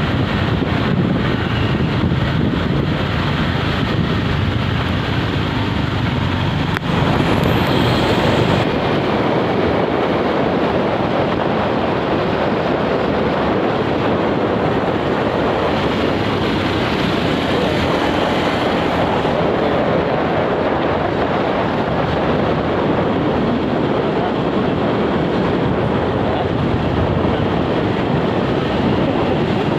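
Steady motor-vehicle traffic noise, a continuous roar of engines and tyres with a sudden change in texture about seven seconds in.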